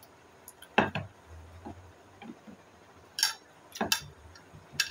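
A few short, irregular clicks and taps from cake being eaten face-first off plates on a tabletop: plates knocking on the table and mouth smacks, the sharpest about a second in.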